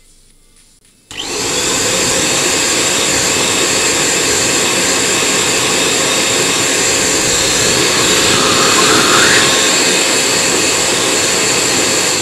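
Handheld electric air pump switched on about a second in. Its motor runs at a steady pitch with a loud rush of blown air.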